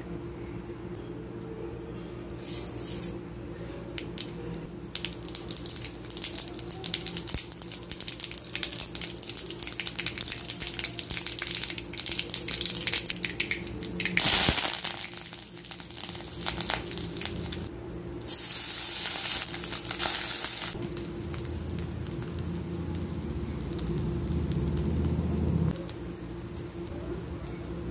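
Mustard-seed tempering crackling and sizzling in hot oil in an aluminium kadai, with louder bursts of sizzling about halfway through as curry leaves go into the oil. A steady low hum runs underneath.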